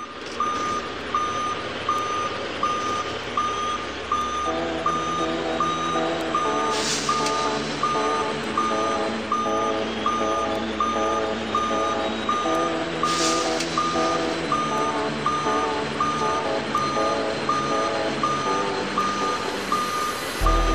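Warning beepers on heavy lifting and haulage equipment (a gantry crane and heavy-haul truck handling a train car): a steady, evenly repeating high beep, joined about four seconds in by a second, lower alarm beeping at its own rhythm, over a diesel engine running. Two short hisses of air come through about a third and two thirds of the way in.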